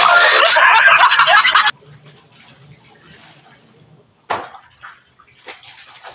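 Laundry being washed by hand in plastic basins: water sloshing and splashing as clothes are scrubbed, lifted and dropped, with one sharper splash a little past four seconds. A loud, dense sound covers the first second and a half and cuts off suddenly.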